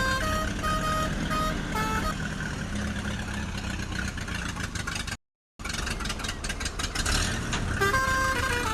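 Cartoon vehicle engine sound effect: a steady low engine rumble under a simple bright jingle melody. The melody stops about two seconds in. The sound cuts out completely for a split second a little past the middle, comes back with rapid clicking, and the melody returns near the end.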